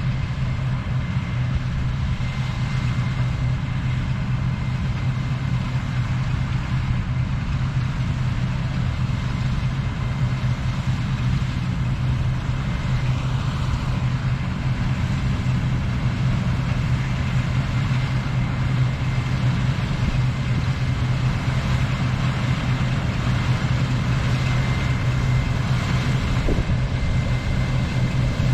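Claas Lexion 420 combine harvester running steadily while harvesting wheat: a constant low engine drone with a thin, steady high whine over it.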